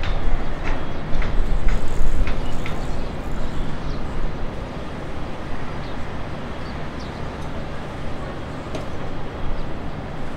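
Boeing 777-300ER's twin GE90 jet engines running at taxi power, heard from a distance as a steady low rumble that is loudest in the first few seconds and then eases off, with faint short ticks above it.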